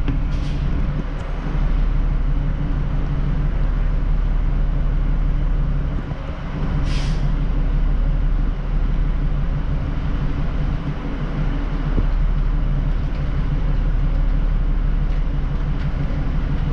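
Diesel train's engine idling while the train stands at the platform, a steady low hum heard from inside the carriage. A short hiss of released air about seven seconds in, with a fainter one near the start.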